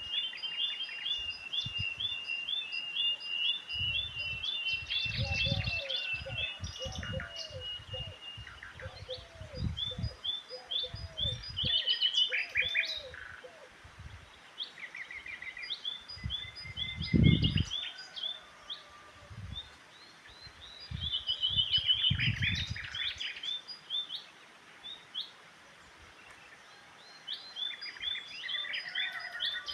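Several birds chirping and singing, with fast runs of short high chirps and a lower series of repeated calls in the first half. Low rumbling thumps come and go through the middle, the loudest about 17 seconds in.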